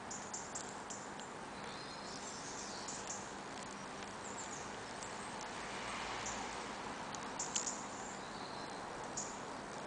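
Steady outdoor background hiss with scattered faint, high-pitched ticks and small chirps, a cluster of sharper clicks about seven and a half seconds in.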